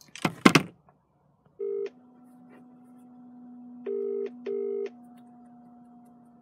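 British telephone ringing tone heard through a mobile phone's speaker while an outgoing call rings out: a short ring about a second and a half in, then a double ring near four seconds, over a steady low hum on the line. It follows a short loud handling noise about half a second in.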